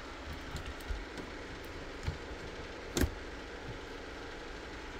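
Light clicks and knocks of hands handling laptop parts during a screen swap, the sharpest about three seconds in, over a steady low background hum.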